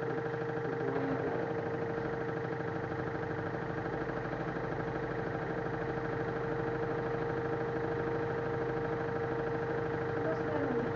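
LG F1089ND direct-drive washing machine spinning at a steady speed: an even motor whine over a low hum that does not change.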